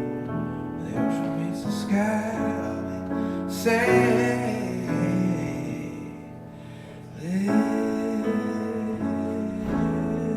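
Piano playing slow, sustained chords of a ballad, dropping quieter for a moment around the middle before building again.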